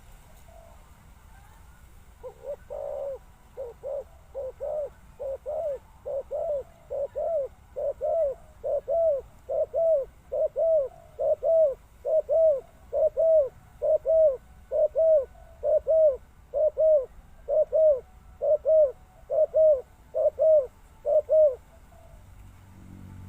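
A dove cooing: a long series of evenly spaced, arched coo notes, roughly one a second, growing steadily louder and stopping shortly before the end.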